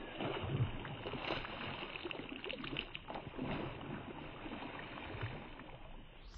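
Water trickling and splashing at the edge of a pond, a busy, irregular patter with no steady tone.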